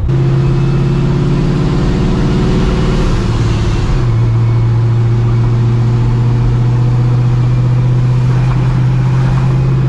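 Straight-piped, cammed and Procharged 5.4-litre two-valve V8 of a 1999 Mustang GT cruising at low engine speed on light throttle, a loud steady exhaust drone heard from inside the car. Its pitch drops slightly about three to four seconds in, then holds.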